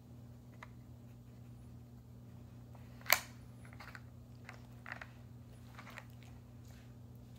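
Plastic clacks from a dog nosing the lids of a plastic puzzle feeder: one sharp clack about three seconds in, then a handful of lighter ticks, over a steady low hum.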